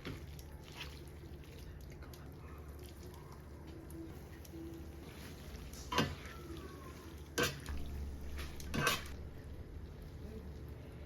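Quiet kitchen sounds: a faint wash of water with three sharp taps, like dishes or utensils being handled, in the second half about a second and a half apart.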